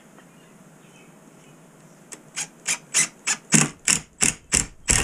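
Orange one-handed bar clamp being tightened with repeated squeezes of its trigger handle. It gives about ten short rasping strokes at roughly three a second, starting about two seconds in.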